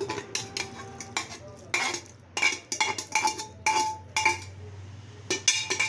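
Steel pot and utensil clinking and scraping against a steel bowl as food is knocked out of the pot. It makes a quick run of sharp metal clinks, each with a brief ring, then a short pause and a few more clinks near the end.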